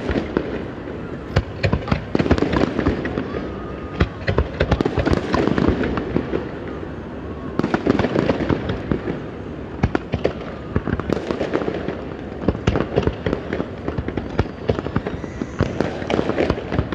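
Fireworks display: a rapid, continuous barrage of bangs and crackles as shells burst in quick succession.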